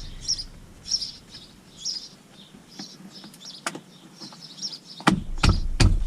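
A small bird chirping repeatedly in short high notes, with three or four sharp knocks about five seconds in.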